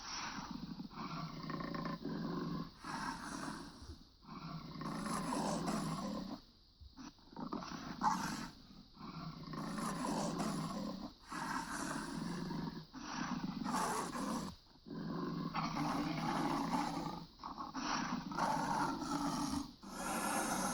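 Big-cat roaring sound effects: a string of growling roars, each one to two seconds long, with brief pauses between them.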